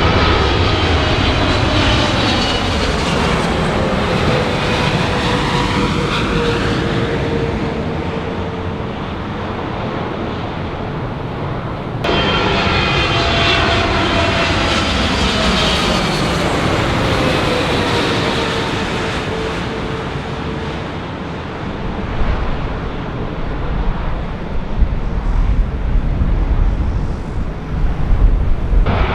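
Jet airliners passing close by, their turbofan whine falling in pitch as each goes past, twice, with an abrupt break between the two passes. Near the end a deep, uneven rumble takes over.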